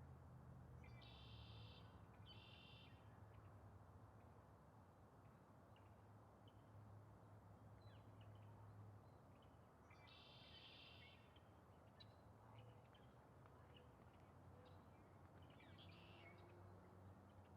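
Faint bird calls: two short calls close together near the start, another about ten seconds in, and a few fainter chirps near the end.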